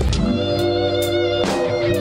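Live blues band playing: an electric guitar leads with held, wavering notes over bass guitar and drum hits.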